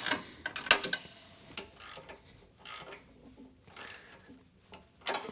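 Two combination wrenches working a nut and bolt on a lift's hydraulic pump mount, giving a string of irregular metallic clicks and ticks as the bolt is snugged down.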